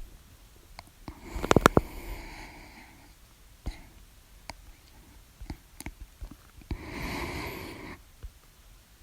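A person's hiccup about a second and a half in: a sharp click with a rush of breath. A longer breathy rush follows near the end, with small clicks in between.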